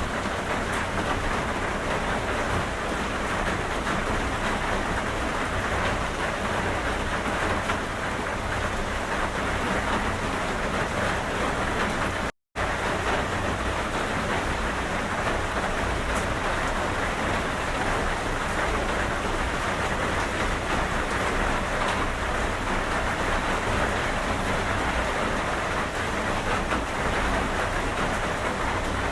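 Steady rain falling, an even continuous hiss that cuts out completely for a split second about halfway through.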